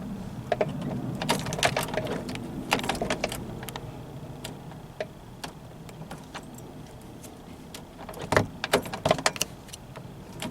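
Scattered light clicks and small rattles as a plastic straw is worked down a car door's lock-knob hole to hook the fallen lock rod, busier in the first few seconds and again about eight seconds in.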